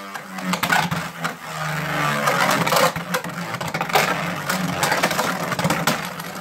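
Vise Leopard Beyblade Burst top spinning on a plastic Beystadium floor: a steady whirring hum with many clicks and knocks as it skids and strikes the stadium.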